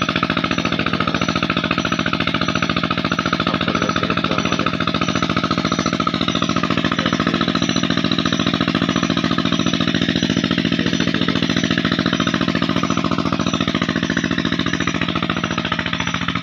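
Petter diesel engine driving a tubewell pump, running steadily with a fast, even knocking beat.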